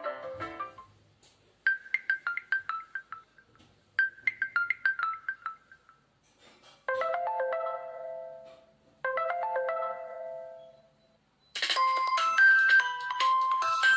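Nokia Lumia 520's preloaded phone tones played in turn: a short run of quick bright notes sounded twice, then a brief chime with a long fade sounded twice, and about eleven and a half seconds in a busier electronic ringtone begins.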